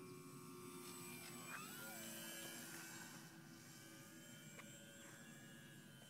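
Faint whine of a radio-controlled Piper Cub model plane's motor and propeller in flight. The pitch drops about one and a half seconds in as the plane passes by.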